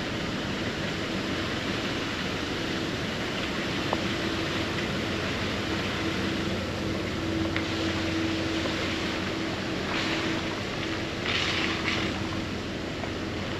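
Car driving on a rain-wet road: steady tyre and road noise with a low engine hum, and a couple of brief louder hisses near the end.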